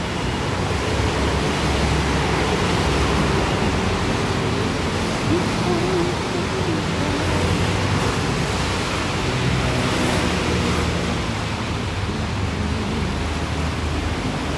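Steady hiss of rain falling on a wet street, with a steady low rumble underneath.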